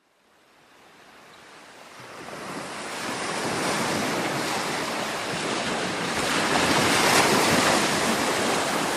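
Ocean surf, fading in from silence over the first few seconds and then a steady wash of breaking waves with slow swells.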